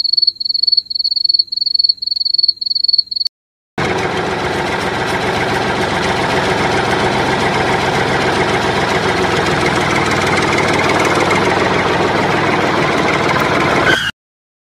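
Tractor engine running steadily, starting suddenly about four seconds in and cutting off sharply just before the end. Before it, a cricket chirps in a rapid even rhythm for about three seconds.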